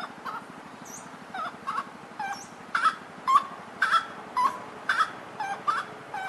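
Gray-cowled wood rail calling: a rhythmic series of short, loud, sweeping notes, two or three a second, growing louder about halfway through.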